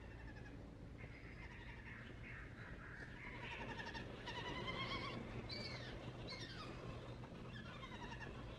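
White-throated babbler fledgling giving quavering, bleat-like begging calls, over and over with several calls overlapping, loudest about halfway through: a chick soliciting food from its parent. A steady low hum lies underneath.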